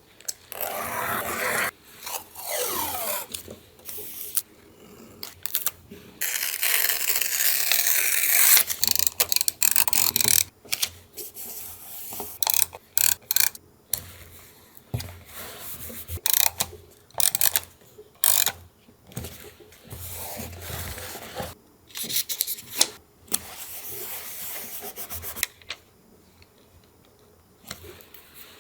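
Paper being handled for collage journaling: rustling, rubbing and scraping of paper, with a long stretch of rubbing several seconds in and many short taps and clicks after it.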